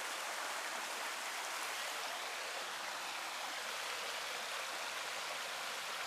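Creek water rushing steadily over a small dam.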